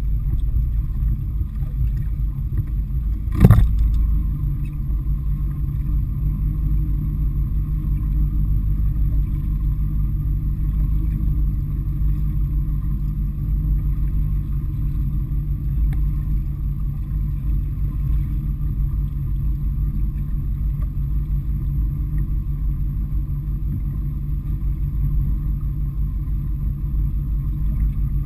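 Boat engine running steadily, a low even hum heard through a boat-mounted camera, with one sharp knock about three and a half seconds in.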